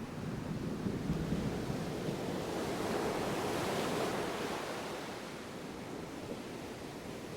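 Ocean surf: a wave swells, breaks with a rush about halfway through, and washes back more softly.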